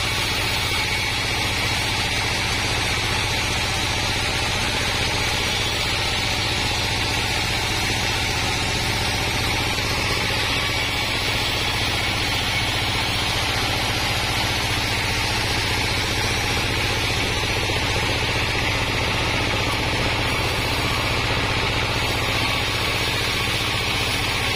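Diesel-driven band sawmill running steadily while planks of wadang timber are ripped along the blade: an even engine and saw noise throughout.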